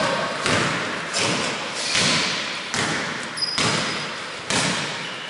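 A basketball dribbled on a wooden gym floor, one bounce a little more than once a second, each bounce echoing in the hall.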